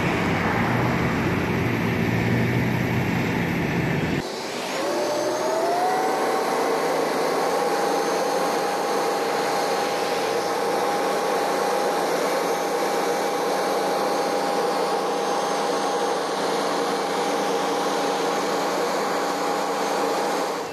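Manitex boom truck crane running as it hoists a rooftop package unit: a steady low engine rumble, then about four seconds in the rumble drops away and a whine rises in pitch and settles into a steady whine.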